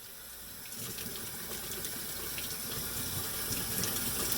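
Water running steadily with a splashing hiss and small ticks of droplets, growing gradually louder.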